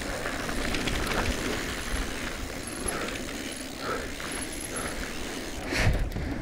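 Cube Stereo Hybrid e-mountain bike ridden fast down a dirt trail: steady tyre rumble with rattling from the bike. Near the end there is one loud clattering thump as the bike hits a wooden plank bridge.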